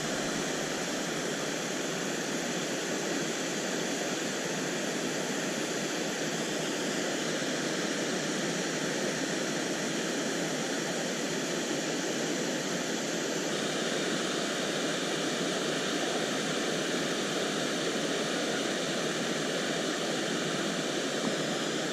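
Steady rush of river water, an even hiss with no change in level.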